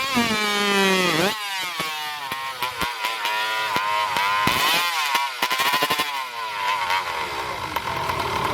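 Two-stroke racing chainsaw revving high, then bogging down as it cuts through a log, the engine note wavering under a crackle of chain and wood; near the end a saw runs at a steadier pitch.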